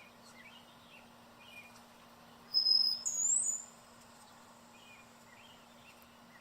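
A songbird gives a loud, high, thin whistle about two and a half seconds in: a held note for about half a second, then a quick rise into a higher note held briefly. Faint scattered chirps from other birds come before and after it.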